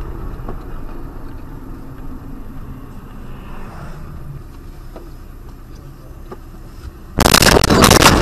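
Low, steady hum of a car driving, then about seven seconds in a sudden loud crash as the car collides, the noise carrying on after the impact.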